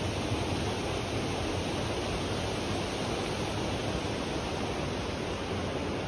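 Steady rush of fast-flowing water from a mountain stream or waterfall, an even hiss with no change.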